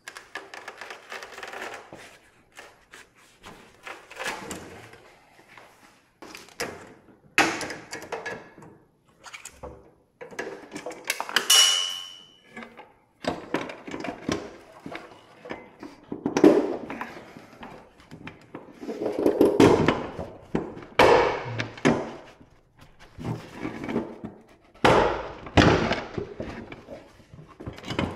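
Irregular thuds, knocks and metal clanks of parts and tools being handled and struck during dismantling work on a Land Rover Defender, with one short ringing clang about eleven seconds in.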